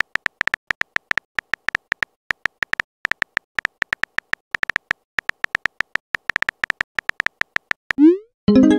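A rapid, irregular run of short electronic beeps, all at one pitch: a chat-typing sound effect as text messages are written out. Near the end a rising swoosh is followed by a short chime, a message notification.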